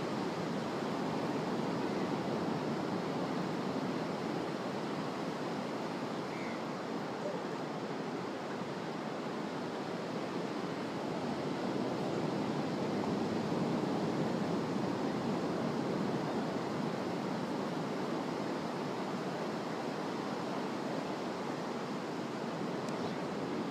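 Ocean surf washing onto a sandy beach: a steady rush that swells and eases gently.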